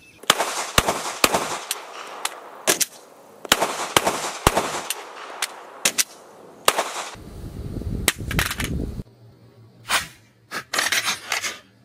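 Glock pistol fired at a range: about a dozen shots roughly half a second apart, each ringing out briefly. Near the end come a few sharp hard impacts, a pistol dropped onto concrete in a drop test.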